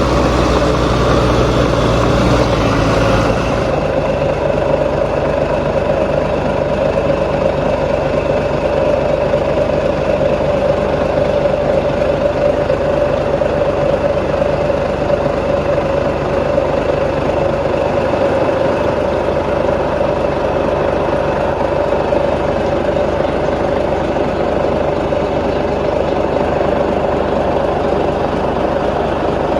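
Diesel engine of heavy earth-moving machinery running steadily at a constant pitch. The sound shifts abruptly about three and a half seconds in, losing some of its deep rumble and hiss, then runs on unchanged.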